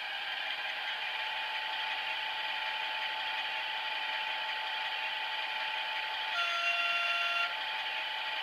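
Diesel engine sound of an H0 model FS D445 locomotive, played by its ESU LokSound decoder through the model's small speaker, running steadily. Near the end the horn sounds once for about a second.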